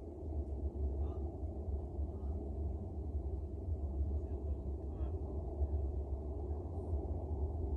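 Steady low rumble of a train in motion, heard from inside the carriage, with faint voices in the background.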